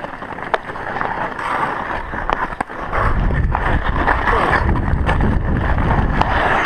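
Ice skate blades scraping and gliding over rough outdoor rink ice, with several sharp clacks of hockey sticks striking the ball and the ice. A low rumble swells from about halfway through.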